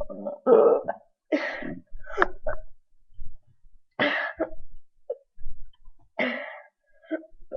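A man burping in a series of short, throaty bursts, about five over several seconds with pauses between them. Several of the bursts are breathy and cough-like.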